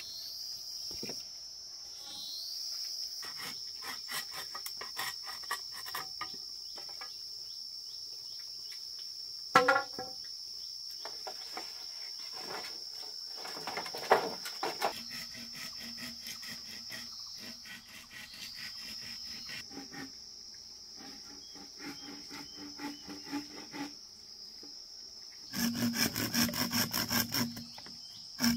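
Insects calling steadily on one high, continuous note, with scattered light knocks and scrapes. Near the end come a couple of seconds of quick, rhythmic rasping strokes on wood.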